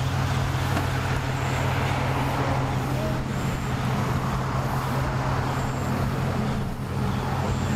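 Steady low hum of an idling engine over a wash of outdoor noise.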